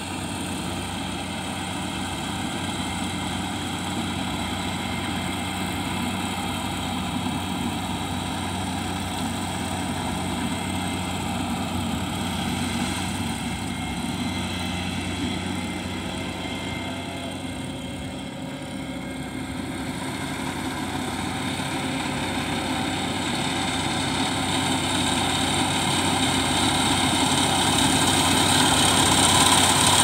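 Kubota rice combine harvester running steadily as it cuts, its engine and machinery a constant hum that grows louder over the last third as the machine comes closer.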